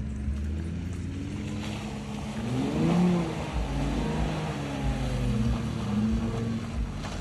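Off-road Jeep engine revving hard under load: the pitch climbs to a peak about three seconds in, falls away, then rises again near the end.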